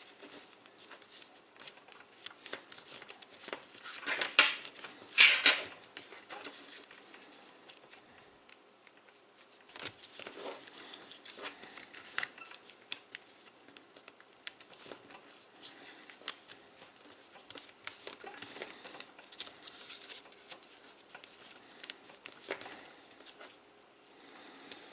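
A sheet of origami paper rustling and crinkling under the fingers as it is folded and creased into a paper fighter jet, in small irregular crackles, with two louder bursts of rustling about four and five seconds in.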